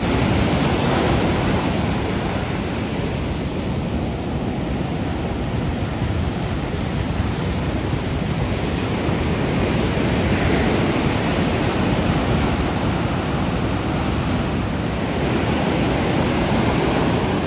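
Ocean surf breaking and washing up a beach: a steady rush of noise that swells and eases every few seconds.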